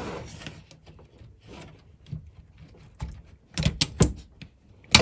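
Plastic front panel of a cassette deck being worked loose and pulled off by hand. A short scrape at the start, then a few sharp clicks and knocks about three to four seconds in.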